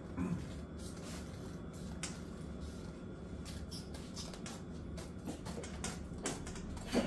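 Scissors snipping through heavy curtain fabric: a run of short, irregular crisp snips and rustles of the cloth, with a soft bump near the end.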